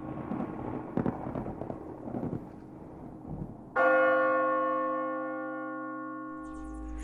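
A bell tolls once about halfway through, a sudden stroke that rings on and slowly fades, after the dying rumble of an earlier sound. A low steady drone sets in near the end.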